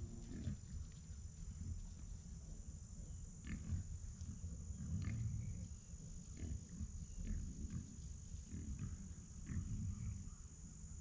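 Wild hogs grunting at close range in irregular low puffs, with short higher calls between them, over a steady high insect drone.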